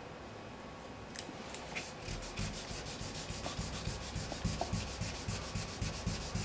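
Hand sanding block with 600-grit paper rubbed back and forth over the car's painted body panel, knocking down a paint run. The strokes start about two seconds in and go on in a quick, even rhythm, with only a few faint clicks before them.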